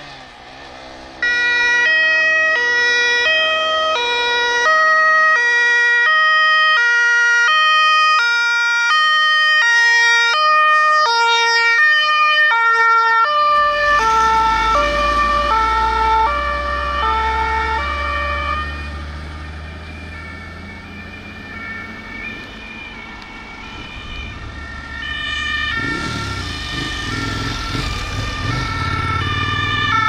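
German fire engines' two-tone horns (Martinhorn) sound their alternating high-low 'tatü-tata', about one tone change a second. About halfway through, a heavy truck engine's rumble comes in as the horn tones shift lower. The rumble eases off, then swells again near the end with the horns still going.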